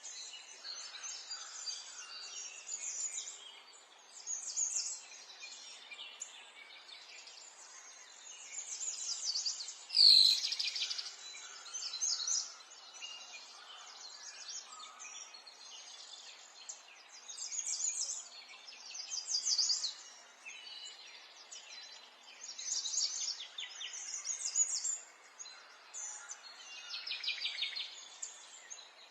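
Small songbirds chirping and trilling in repeated, overlapping bouts of rapid high chirps, with one louder, closer call about ten seconds in.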